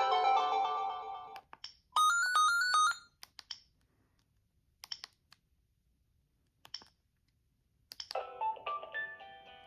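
Gigaset Comfort 552A cordless phone playing its ringtones: a polyphonic ringtone melody stops about a second in, a short run of beeps follows, then a few isolated clicks, and a new ringtone melody starts near the end.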